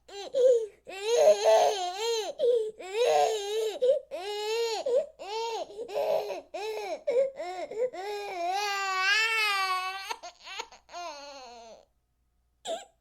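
Baby crying: a run of short, high wailing sobs, then a longer wavering wail that trails off. It stops briefly near the end before the crying starts again.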